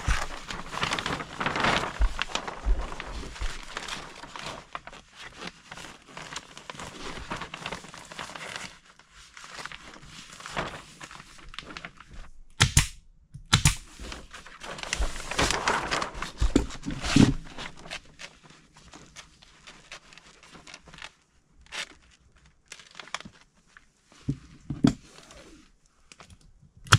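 Plastic sheeting crinkling and rustling as it is handled and fitted against a wall, with two sharp clicks about halfway through.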